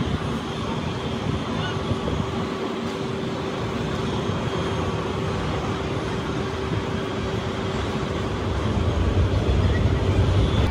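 Airport apron noise: jet aircraft engines running with a steady whine and a deeper rumble that swells near the end.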